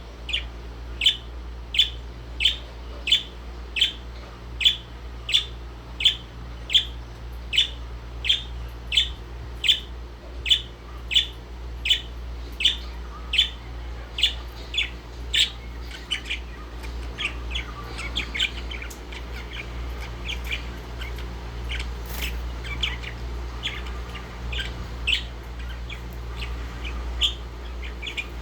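Indian ringneck parakeet calling: short, sharp, high-pitched calls repeated evenly, about three every two seconds. About halfway through the calls become quieter and more irregular.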